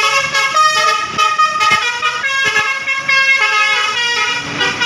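Basuri telolet multi-tone air horn on a bus playing a quick melody, its notes changing pitch in rapid steps one after another.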